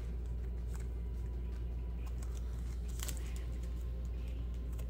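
Trading cards and foil booster-pack wrappers being handled: a few faint rustles and clicks, the clearest about three seconds in, over a steady low electrical hum that is the loudest sound.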